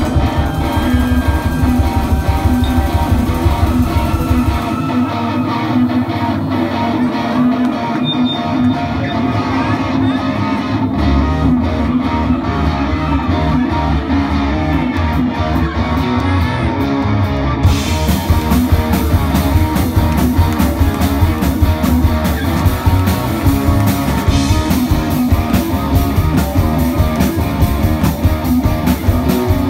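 Live rock band playing, led by an electric guitar over bass. At about 18 seconds in the drums and cymbals come in fully and the whole band plays.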